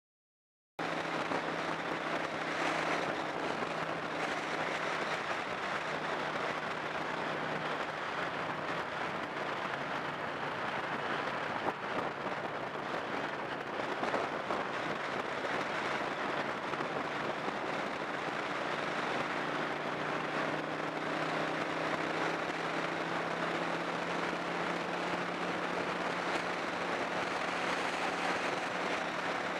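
Car driving along an open road: steady tyre and wind noise with a low engine hum, its pitch rising a little about twenty seconds in.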